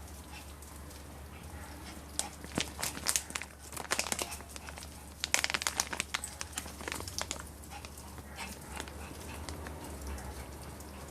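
Crinkling of handled packaging, most likely a marshmallow bag, in two bursts of crackles about two and five seconds in.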